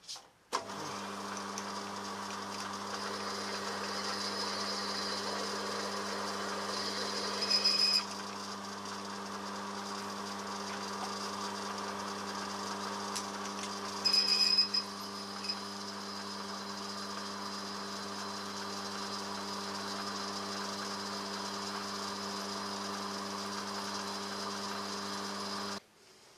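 Milling machine motor running steadily as a twist drill cuts into an aluminium cylinder head, with two brief high-pitched squeals from the bit about 7 and 14 seconds in. The sound cuts off suddenly near the end.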